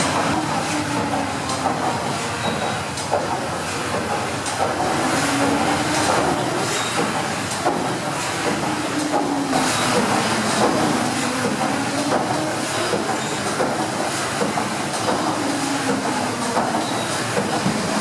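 The PS Waverley's triple-expansion paddle steamer engine running, with steam hiss and a rhythmic mechanical clatter that rises and falls every couple of seconds as the cranks turn.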